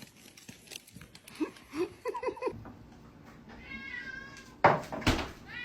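Domestic cat giving about five short, quick meows in a row, followed near the end by two loud noisy bursts.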